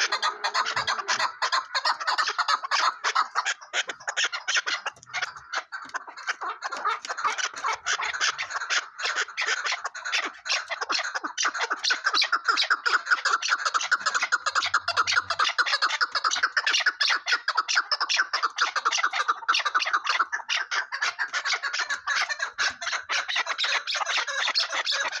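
Partridges calling in a rapid, unbroken chatter of repeated notes.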